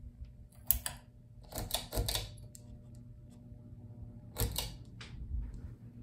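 Minka Aire Traditional Mojo ceiling fan's motor humming steadily. Several irregular bursts of clicking and clattering, louder than the hum, come about a second in, at two seconds and again past four seconds.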